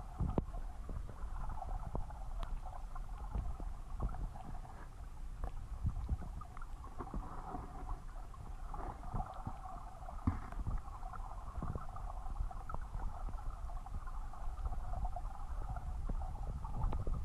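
Stream water heard through an underwater camera's housing: a steady, muffled gurgling rush with a low rumble and scattered small clicks and knocks.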